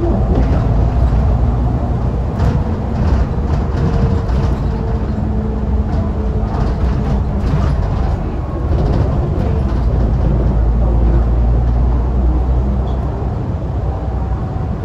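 Alexander Dennis Enviro500 MK2 Euro 3 double-decker bus under way, heard from inside the lower deck: its diesel engine drones steadily, with light rattles of the body and fittings now and then. The level dips briefly about halfway through as the engine eases, then picks up again.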